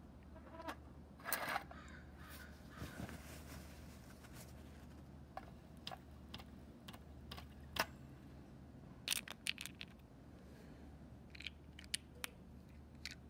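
Scattered light clicks and taps from handling a small model oscillating steam engine, a few in a quick cluster about two-thirds of the way through, over a steady low hum.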